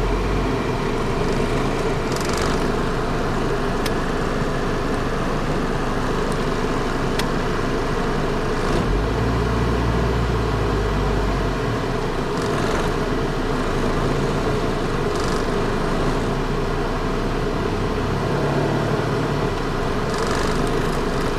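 Mazda 626's 2.0-litre FS four-cylinder engine idling steadily in gear, the automatic held on the brake, with the AC compressor and blower fan running. A few faint ticks come through now and then.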